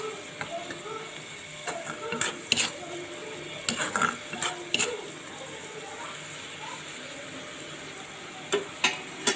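Metal spatula scraping and clinking against a black iron kadai as shredded cabbage and tomato are stir-fried over a steady low sizzle. The clinks come in a scatter through the middle and twice more near the end.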